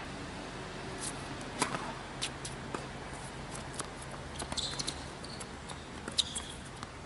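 Tennis rally on a hard court: a string of sharp knocks as the ball is struck by racquets and bounces, irregularly spaced, with a couple of short sneaker squeaks as a player runs forward. A steady low hum runs underneath.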